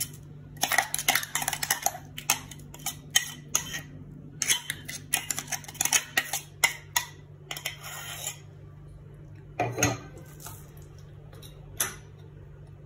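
Metal spoon scraping and clinking against a stainless steel mixer jar and bowl as thick ground-corn paste is scraped out and stirred into batter. The scraping is busy for the first eight seconds or so, then thins to a few scattered knocks.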